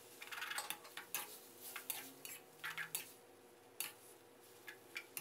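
Metal spatula scraping and clinking against a steel wok while stir-frying rice vermicelli in sauce, in scattered short strokes that come thick for the first three seconds and then thin out.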